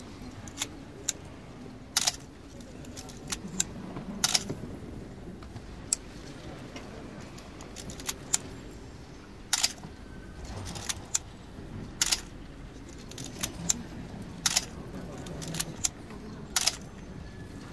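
Canon AE-1 35mm film SLR being handled, its top-plate controls giving sharp, irregular mechanical clicks, about one a second, over soft rubbing of fingers on the body.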